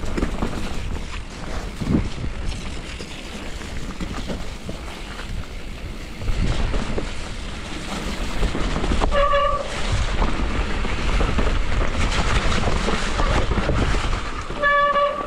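Mountain bike ridden down a wet trail: wind buffeting the microphone over the steady rumble and rattle of the ride. Two short, high brake squeals come, about nine seconds in and again near the end.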